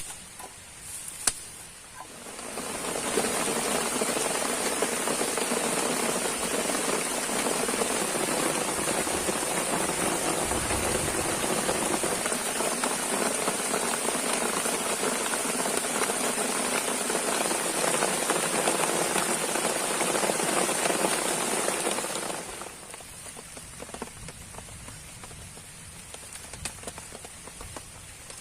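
Heavy rain pouring down in a dense, steady hiss. It sets in about two seconds in and stops abruptly a few seconds before the end, leaving fainter scattered drips.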